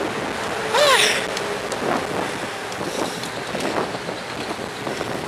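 Wind buffeting the microphone of a bike-mounted camera while cycling, over steady road noise. About a second in there is a brief vocal sound.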